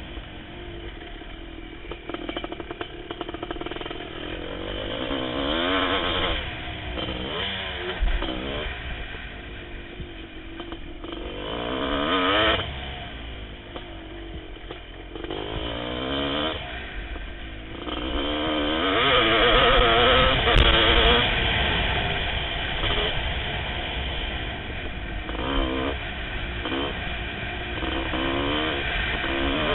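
1988 Kawasaki KX500's 500cc single-cylinder two-stroke engine being ridden hard, revving up and dropping back again and again as the throttle is opened and shut, with the pitch sliding up and down with each burst.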